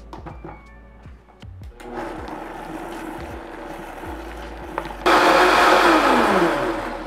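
Countertop blender motor blending a thick oat-flour, banana and oat-milk batter. It runs at a moderate level for about three seconds, jumps to a much louder high speed about five seconds in, then falls in pitch and dies away near the end as it is switched off.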